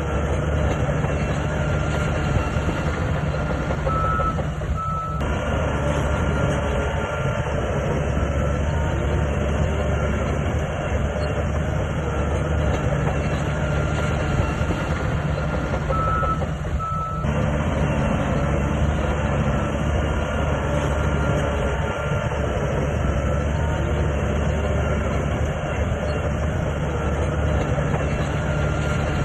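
Heavy diesel earthmoving machinery, a bulldozer and dump trucks, running steadily at work. A reversing alarm gives two short pairs of beeps, about four seconds in and again about twelve seconds later.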